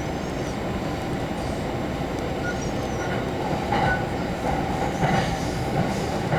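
Electric commuter train running, heard from inside a passenger car: a steady rumble of wheels on rail, with a few faint, short wheel squeals and a slightly louder stretch in the second half.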